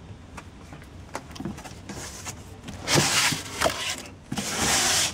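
A cardboard shipping box being opened by hand: scattered clicks and scrapes of cardboard and plastic wrap, then two loud ripping sounds, about three seconds in and again near the end, as the packaging is torn open.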